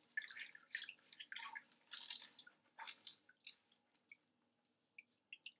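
Wet goalkeeper gloves being squeezed and worked by hand over a stainless steel sink: irregular squelches with water splashing and dripping. The sounds thin out to a few scattered drips over the last two seconds.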